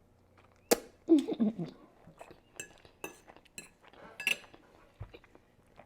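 An eating utensil clinking and tapping against a dish: a series of sharp, separate clinks, several of them with a brief ring. A short vocal sound comes just after the first clink, about a second in.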